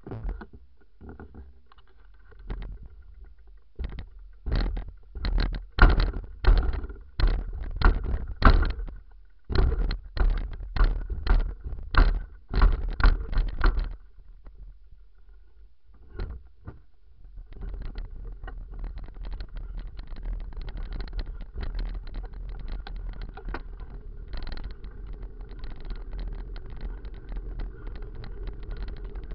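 Full-suspension mountain bike jolting down a flight of steps: a run of sharp knocks about two a second. After a short lull comes a steady rumble and rattle of the tyres and frame on a rough dirt track.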